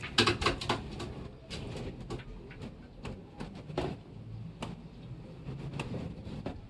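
Pigeons cooing softly, with a quick run of sharp clicks and rustles in the first second and scattered single clicks after.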